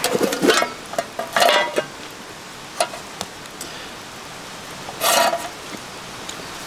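A utensil stirring and scraping inside an aluminium mess tin set on a grill net, heard as a few short bursts of metal scraping and clinking over a steady low hiss.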